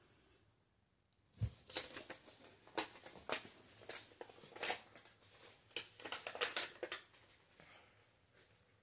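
Paper seed packet crinkling and rustling in gloved hands as it is torn open and handled, a quick run of small crackles with a soft knock near the start, stopping near the end.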